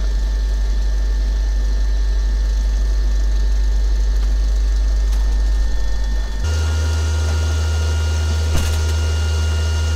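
Car alternator converted to a delta-wound permanent-magnet brushless motor, spinning at high speed of around 4,500–4,700 rpm with a loud, steady hum and some vibration from imbalance. About six and a half seconds in, the hum steps up in pitch as it is sped up further, with a higher steady whine added. A single brief click comes near the end.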